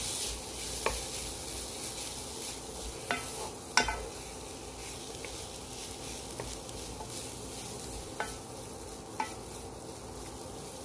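Fried rice with carrots sizzling in a pot as a wooden spatula stirs and scrapes through it. There is a steady hiss, and the spatula knocks against the pot now and then, loudest about four seconds in.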